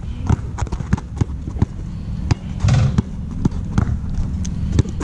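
A basketball being dribbled on an outdoor court: a run of sharp, irregularly spaced bounces, with a brief louder noise about halfway through.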